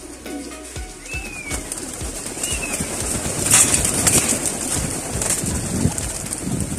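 Racing pigeons taking off from the loft in a flock, wings clattering, the rush of wingbeats loudest about halfway through, with pigeons cooing.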